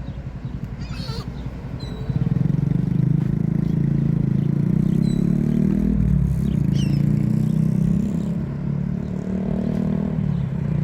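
A motor engine running close by, growing louder about two seconds in and holding steady, with a few short high bird calls over it.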